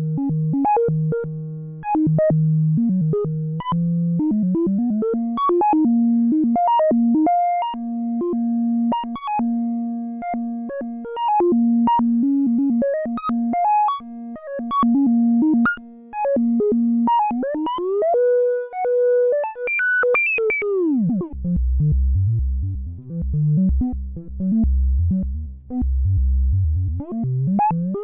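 Modular synthesizer sequence of short repeating notes played through the CubuSynth Dual CS-20 VCF, an MS-20-style filter. About two-thirds of the way in the pitch glides up to a held tone, then falls away into low bass notes.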